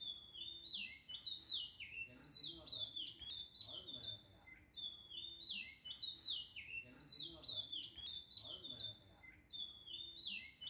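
Bird chirps: a short phrase of quick falling chirps that repeats about every two seconds.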